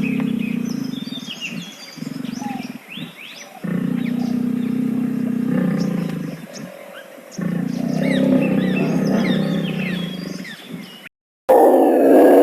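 A wild cat's low, drawn-out vocalisations, each lasting a couple of seconds with short breaks between, while birds chirp in the background. Near the end the sound cuts out briefly and a louder call begins.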